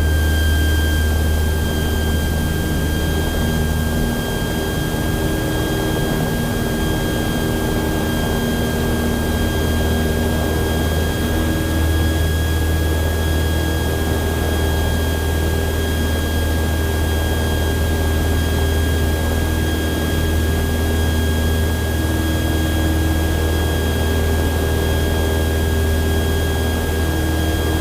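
Cessna 172's piston engine and propeller running steadily at full takeoff power as the plane accelerates and climbs out, heard as a loud, even cabin drone with a constant high whine above it.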